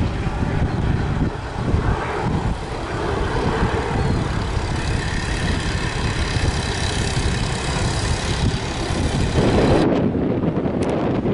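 Jet airliner's engines running with a high whine of several tones through the middle, under heavy wind buffeting on the microphone. Near the end a strong gust swamps the high sound.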